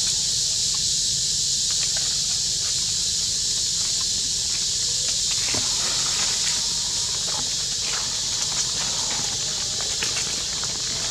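Steady high-pitched drone of an insect chorus, with scattered soft rustles and clicks from a monkey walking over dry leaf litter.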